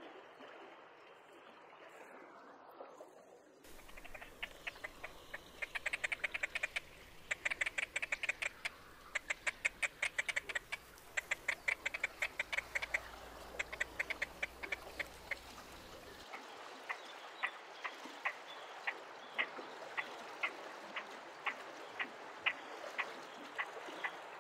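Great crested grebes calling in courtship display: rapid runs of short, clicking notes starting a few seconds in, then about halfway through a slower, even series of single notes, roughly two a second.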